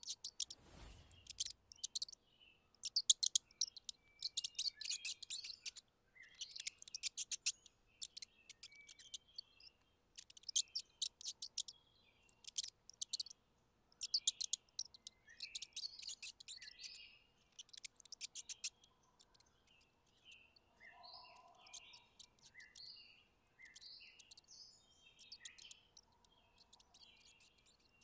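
Mice squeaking: bursts of rapid, high-pitched chirping squeaks with short pauses between, fainter and sparser in the last third. A brief low whoosh comes about a second in.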